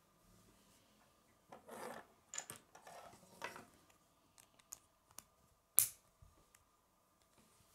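Plastic K'nex construction pieces being handled and fitted together: rubbing and light clicks, with one sharper click about six seconds in.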